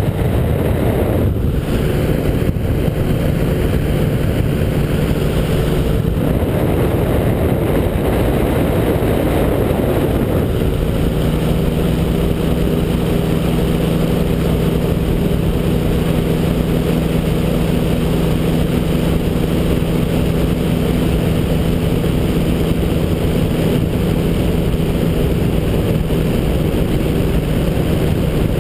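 Ultralight trike's engine and propeller running steadily in flight, with heavy wind rush over the open cockpit. About ten seconds in, the engine's hum becomes steadier and stronger.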